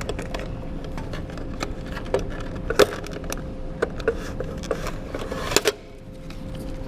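Rapid, irregular clicks and clacks of a vending machine being opened and serviced by hand, over a steady faint hum; both stop shortly before the end.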